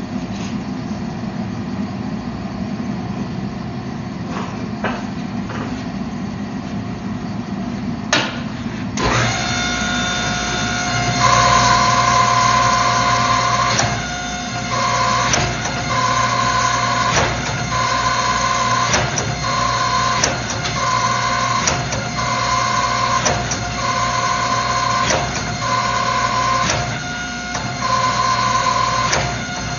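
Hydraulic forging press running with a steady low hum. About nine seconds in, it starts working in a regular rhythm of strokes, roughly one every two seconds, with a high whine that comes and goes with each stroke and a click between strokes, as the Damascus billet is drawn out.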